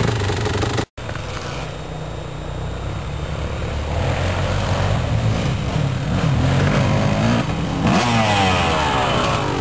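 Dirt bike engines running, with a brief dropout about a second in. After that, motorcycles come up the trail toward the microphone, and near the end the nearest one revs, its pitch rising and falling.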